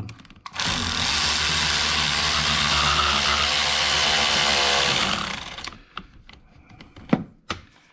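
A cordless power tool's motor running steadily for about five seconds, driving a battery terminal clamp nut tight, then stopping; a few light clicks follow near the end.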